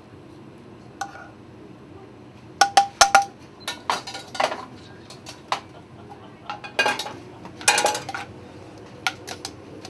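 Metal tongs and utensils clinking and scraping against a skillet and a plate while food is served: a scattering of sharp clinks, some with a brief metallic ring, grouped in quick clusters, with a few short scrapes between.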